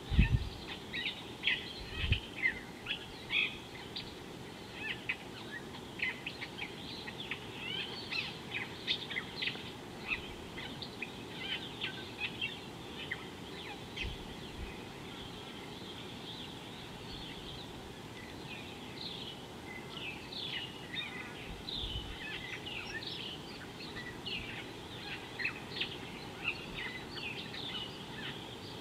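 Small birds chirping and calling throughout, many short high notes in quick succession, over a steady background hiss. A few low thumps stand out, the loudest right at the start and others about two, fourteen and twenty-two seconds in.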